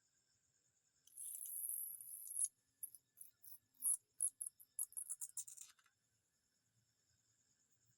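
Insects chirping steadily in a high, even trill, broken about a second in by a loud high hiss. A run of short scratchy rustles follows and stops about six seconds in.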